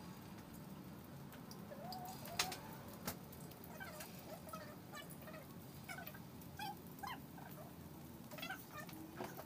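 Faint, short, pitched animal calls repeating on and off, each a brief glide in pitch, with two sharp knocks about two and a half and three seconds in.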